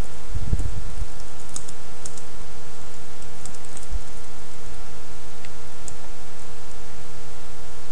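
Computer keyboard typing in short runs of keystrokes, over a steady hum. There is a low thump about half a second in.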